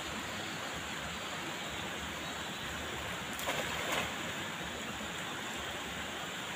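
A cast net thrown out and landing spread on shallow water, its weighted rim hitting with a brief spattering splash a little past halfway. Under it, a steady rush of running water.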